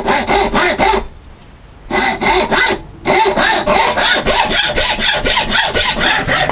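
Hacksaw cutting a wedge slot into the end of a wooden hammer handle held in a vice: quick back-and-forth strokes. It stops for about a second near the start and briefly again about three seconds in.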